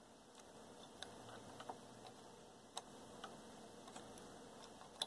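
Faint, irregular ticks of a metal hobby-knife blade flicking the desoldered pins of an IC in their holes on a circuit board, checking that each pin moves freely.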